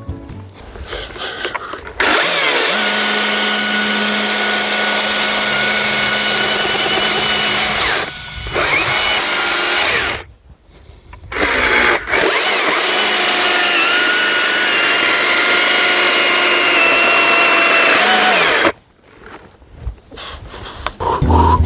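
Battery-powered chainsaw cutting into a birch trunk, its electric motor and chain running at a steady pitch. It starts about two seconds in, stops briefly around the middle, then cuts again until shortly before the end.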